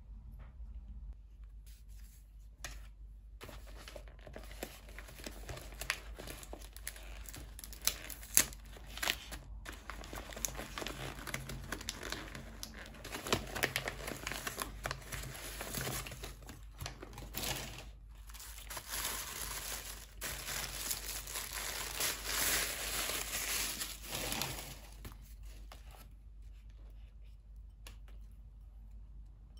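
Paper gift wrapping crinkling and tearing as hands unwrap a package. Near-continuous crackling starts a couple of seconds in and stops a few seconds before the end, busiest shortly before it stops.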